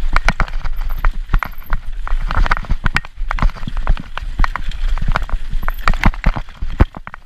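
Mountain bike clattering down a rocky, rooty trail: a rapid, irregular run of sharp knocks as the tyres, suspension and drivetrain hit rocks and roots, over a low rumble of wind on the microphone.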